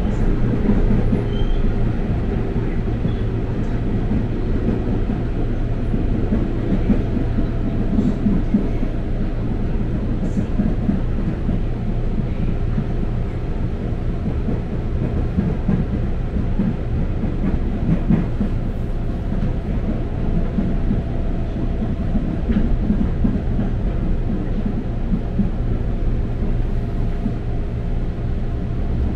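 Steady low rumble inside an electric commuter train car running along the track: wheels on rails and running gear heard from the cabin.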